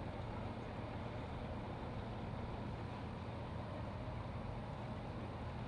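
Engine running steadily at low speed, a low, even hum.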